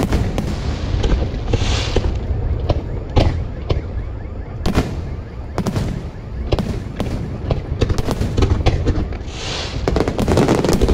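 Aerial firework shells bursting in rapid, irregular succession over a continuous low rumble, with a spell of higher hiss about two seconds in and another near the end.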